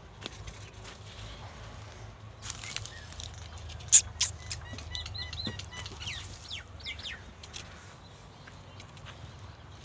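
Birds chirping: a run of short repeated chirps, then a few quick sliding calls, with two sharp clicks about four seconds in, the first of them the loudest sound.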